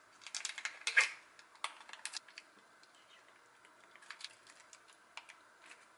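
Plastic wrapper of a mozzarella cheese pack crinkling and tearing open, a quick run of crackles with the loudest about a second in, then a few scattered crackles as the cheese is taken out.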